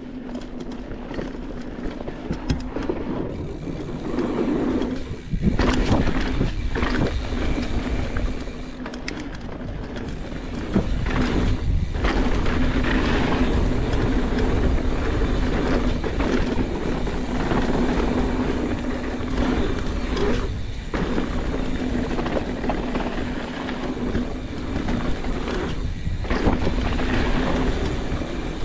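A mountain bike rolling fast over a dirt singletrack: tyre rumble and rattling over bumps and roots, with a steady hum underneath and wind noise on the microphone.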